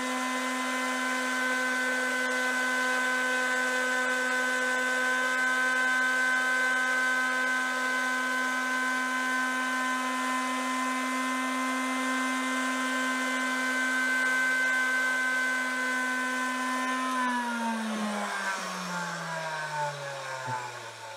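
Porter-Cable palm sander running steadily with a constant whine while sanding an oak spline down toward flush. About three-quarters of the way through it is switched off and winds down, its pitch falling away.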